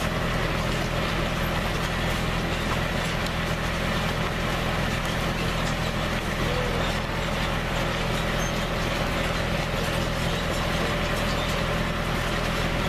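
Engine of the tour wagon's tow vehicle running steadily at a low, even hum, with no change in speed.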